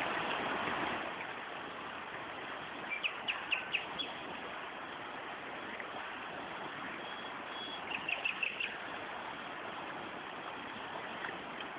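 Flowing river water making a steady rush, with two brief runs of five or six sharp, high chirps, about three seconds in and again about eight seconds in.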